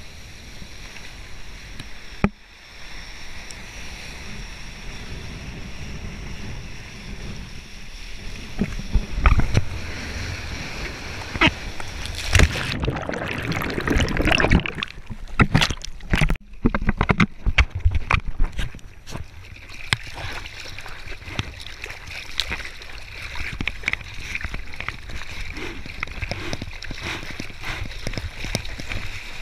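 Sea water splashing and rushing around a surfboard, with a steady hiss broken by irregular loud splashes in the middle. For a few seconds there the sound turns muffled as the board goes under the surface.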